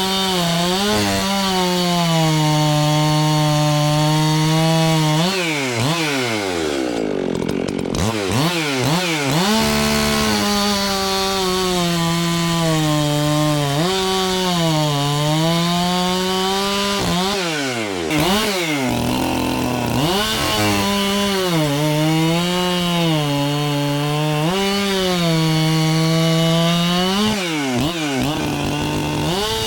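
Modified Husqvarna 372 two-stroke chainsaw running at high revs while cutting wood, the pitch sagging under load and climbing back again and again. The revs drop sharply twice, around six and eighteen seconds in, before picking up. The saw runs strongly and crisply, not as a stock 372 runs.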